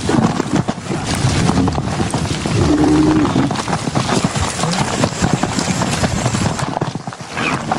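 Horse hooves clip-clopping as a horse is ridden over ground, a dense run of irregular hoof knocks, with a few short calls over them, one about three seconds in.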